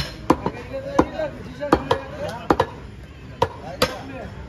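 Meat cleaver chopping beef on a thick wooden chopping block: about seven sharp, irregularly spaced chops, with voices in the background.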